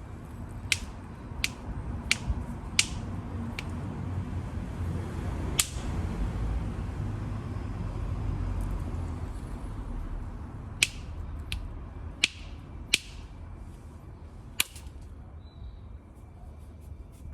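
Flint knapping: a hammer striking a flint core, making sharp, short clicking strikes. There is a run of about five strikes, then a single strike, then a pause, then another run of about five, over a steady low rumble.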